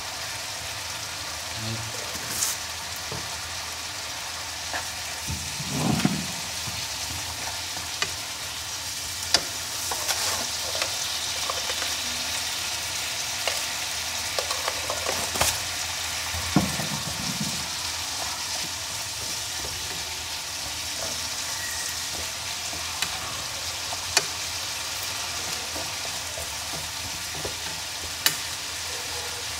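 Bamboo shoots and bitter herb stir-frying in a pan: a steady sizzle, broken now and then by sharp clicks of a utensil against the pan as the food is stirred.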